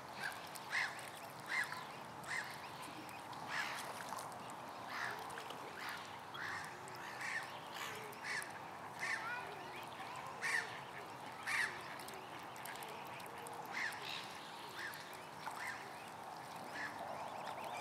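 Mute swan cygnets peeping: short high calls, one or two a second, irregular and overlapping, over a steady background hiss.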